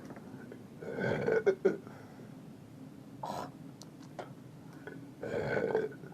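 A man belching repeatedly and on purpose, forcing the belches up: a long belch about a second in, a short burst a little past three seconds, and another long belch near the end.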